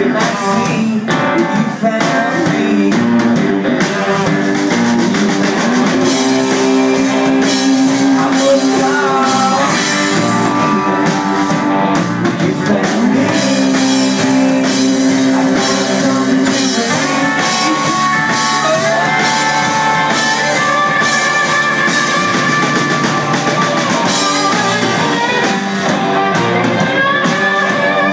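Rock band playing live: electric guitars and a drum kit, with a man singing lead and holding long notes.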